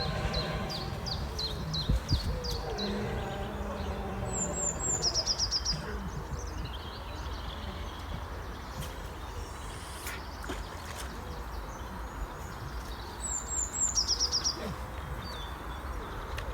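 Small birds singing outdoors. A run of quick repeated chirps at the start is followed by two short song phrases about nine seconds apart, each a few high notes dropping into a fast trill, over a steady low background rumble.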